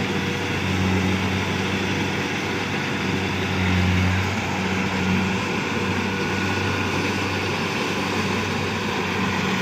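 Rice combine harvester's engine running steadily with a low hum, swelling slightly about four seconds in.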